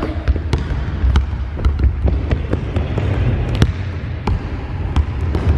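Basketballs bouncing on a wooden sports-hall floor: irregular sharp thumps, about two to three a second, over a steady low rumble.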